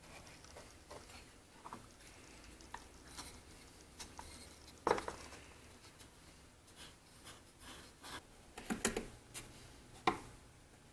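Small walnut and maple box parts being handled, fitted together and set down on a workbench: light wooden clicks, taps and rubbing. There is a louder knock about five seconds in, a quick cluster of knocks near nine seconds and a sharp click near the end.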